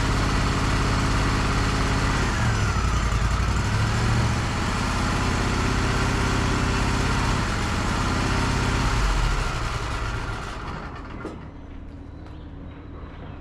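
Wood-Mizer LT35 sawmill's engine running steadily, with a whine that dips in pitch and recovers about two seconds in; the engine sound dies away about ten seconds in, leaving a few light clicks.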